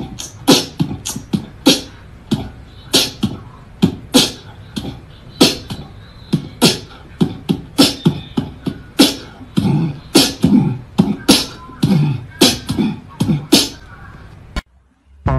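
A run of sharp percussive clicks and taps at an irregular pace, about two a second, some with a dull thud underneath, stopping abruptly about a second before the end.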